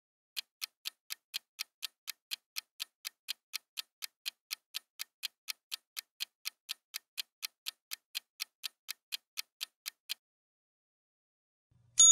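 Clock-ticking countdown sound effect, a steady run of sharp ticks about three a second that stops after about ten seconds. Right at the end a bright bell ding starts, marking the answer being revealed.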